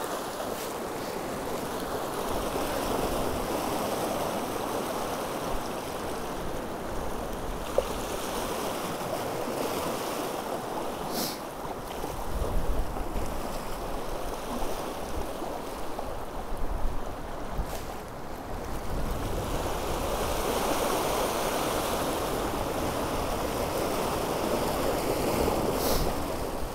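Sea waves washing and breaking against shore rocks, with strong wind buffeting the microphone in gusts. A few brief, sharp clicks sound through it.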